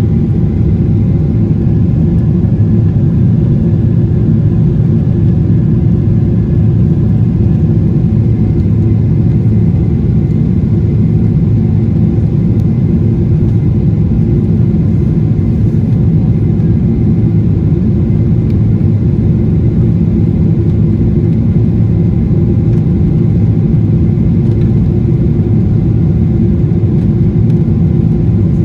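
Aircraft engine noise: a loud, steady low rumble with a few faint steady tones above it and no change in pitch or level.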